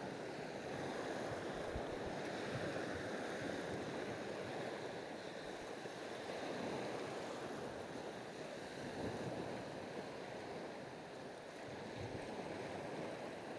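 Small waves washing up on a sandy beach: a soft, steady surf wash that swells and eases gently.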